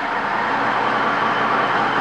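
Sawmill machinery running with a steady mechanical noise and a faint steady hum underneath.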